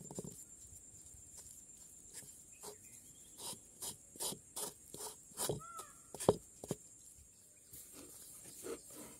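Wooden spoon knocking and scraping against a clay bowl while flour and water are stirred into dough: a series of short clicks and knocks, with one sharp knock just after the middle. A faint steady high-pitched whine runs underneath.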